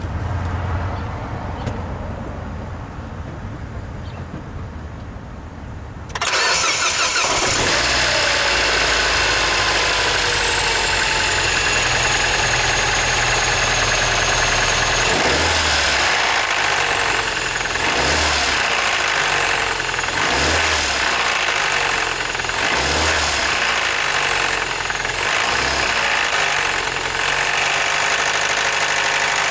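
2007 Mini Cooper engine starting about six seconds in, its fast idle falling and settling, then revved in short blips about every two and a half seconds. This is an engine the seller lists as knocking.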